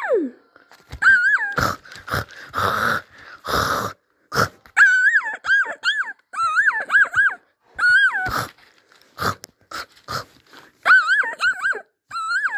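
Paper receipts crumpled and crinkled by hand, crackling and rustling in short bursts. Between them comes a high, wavering whine in short repeated phrases.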